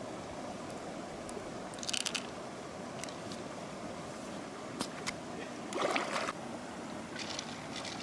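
Steady rush of flowing river water, with scattered clicks and scrapes from freshwater mussel shells being handled. The loudest is a short scraping clatter about six seconds in.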